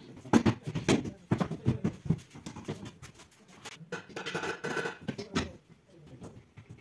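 Clicks, knocks and rattles of metal drawer slide runners being handled and fitted against a chest's side panels, with a scrape lasting about a second around four seconds in.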